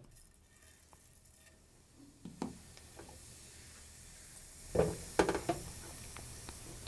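Cumin seeds dropped into hot oil in a non-stick kadai, with a faint sizzle that builds from about halfway through as the seeds begin to temper. A few sharp knocks come about five seconds in as the pan is gripped by its handles and swirled.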